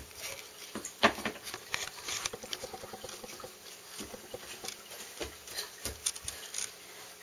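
Irregular light taps and knocks: a toddler's bare feet pattering on a vinyl floor and the large adult shoe he is carrying bumping against the door and floor, with one louder knock about a second in.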